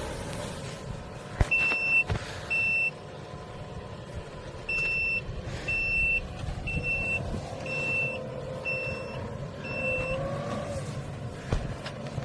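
Eight short, high-pitched electronic warning beeps, about one a second with a pause after the second, like a reversing alarm, over the low, steady running of a tractor engine. A sharp click comes just before the beeps start and another near the end.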